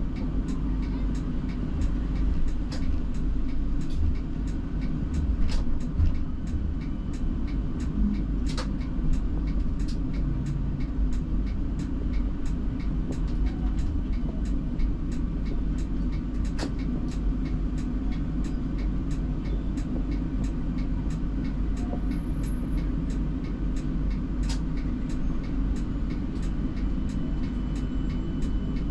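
Cab of a Siemens Combino tram: steady low rumble and hum, with a faint regular ticking about twice a second and a few sharper clicks.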